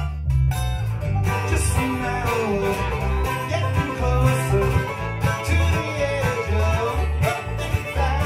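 Bluegrass band playing live: five-string banjo, fiddle and acoustic guitars over a steady low line. The texture thickens into the full band about a second in.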